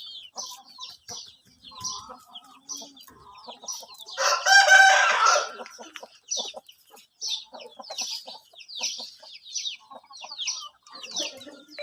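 Aseel rooster crowing once, about four seconds in, the loudest sound, over a steady run of short high chirps or cheeps repeating through the whole stretch.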